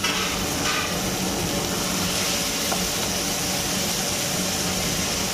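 Chicken curry gravy sizzling and bubbling in a frying pan over a gas flame just after stock water has been added, a steady hiss with a low hum underneath.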